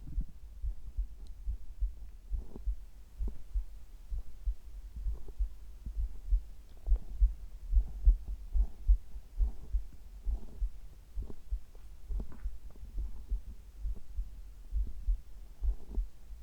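Human heartbeat picked up close against the body: a steady run of low, dull thumps.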